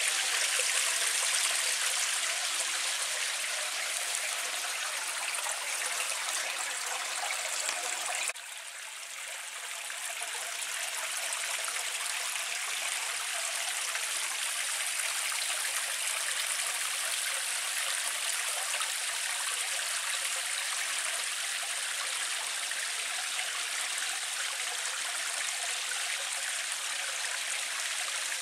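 Steady rushing of a mountain stream's water. The sound drops suddenly about eight seconds in, then builds back up and holds steady.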